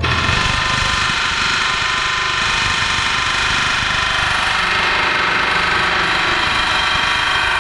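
Pneumatic air hammer (air chisel) hammering continuously with a chisel bit on a steel rivet head in a truck frame rail, cutting the rivet off.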